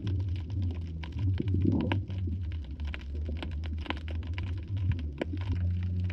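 Underwater sound through a GoPro's waterproof housing: a low, muffled rumble with many scattered sharp clicks and crackles.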